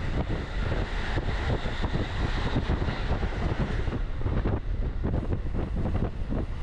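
Electric commuter train running at speed, heard from inside the carriage: a steady low rumble of wheels on rail with dense, irregular rattling and clatter.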